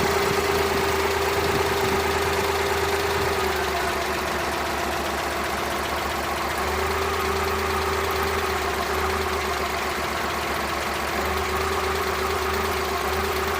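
Suzuki F6A three-cylinder engine idling with an uneven low-end beat: a random misfire that is still there with a new spark plug temporarily fitted.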